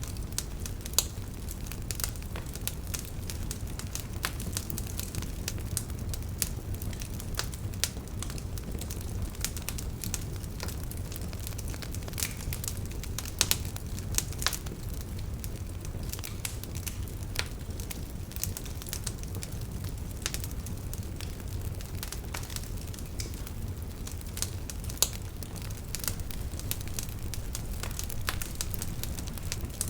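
Wood fire crackling and popping, with a steady low rumble of flames under many irregular sharp snaps, a few of them louder pops.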